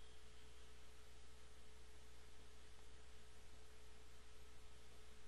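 Faint steady background hum and hiss of the recording, with a thin steady tone above it; no other sound.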